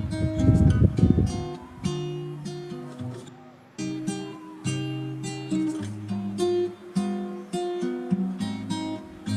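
Background music: acoustic guitar playing a run of plucked notes, with a brief pause a little over three seconds in.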